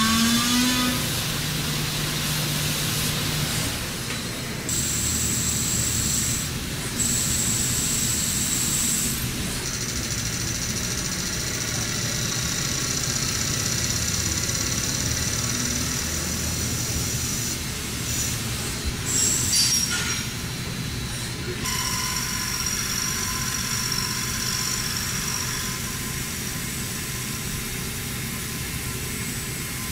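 CNC machine turning a steel crankshaft with carbide insert tools: a steady mechanical running noise with thin high-pitched whining tones that come and go and shift every few seconds.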